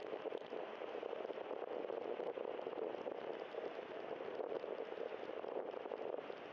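Steady crackling rush of a bicycle riding on wet pavement: tyre hiss on the wet road mixed with wind over the microphone.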